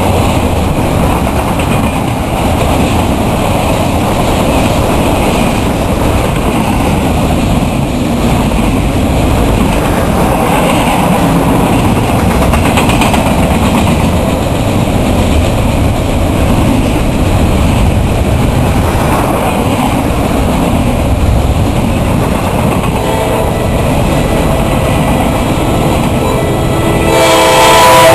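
A train rolls past with a steady rolling noise. Near the end, an approaching locomotive sounds its air horn, a chord of several tones that grows loud in the last seconds.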